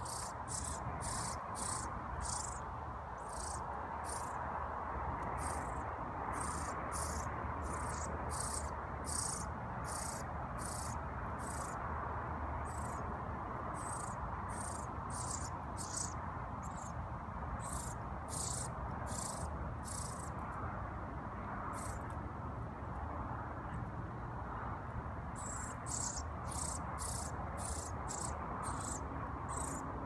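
Fledgling songbird begging: a run of short, thin, high-pitched peeps, about two or three a second, pausing for a few seconds about two-thirds of the way through, over a steady background hum.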